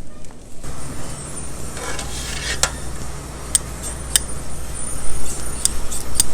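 A steady low hum begins about half a second in. Over it come a short hiss and then scattered sharp clicks and clinks, like handled metal or glass.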